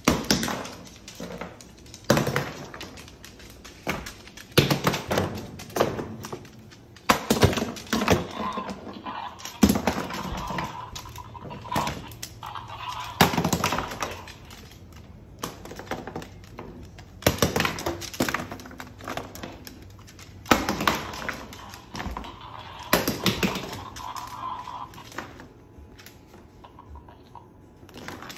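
Irregular thunks and knocks on a hardwood floor, a few every couple of seconds, as a cockatoo pecks and knocks small toys around.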